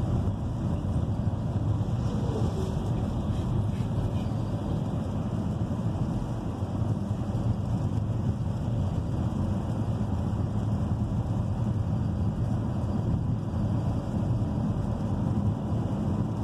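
Steady low rumble of road and tyre noise inside a Chevrolet car's cabin, driving on a wet road in the rain.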